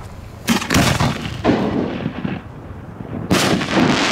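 A 3-inch Italian aerial firework shell: a sharp bang about half a second in, as the lift charge throws it from the mortar tube, with echoing reports after it. About three seconds later comes a second loud bang as the shell bursts, trailing a long echo.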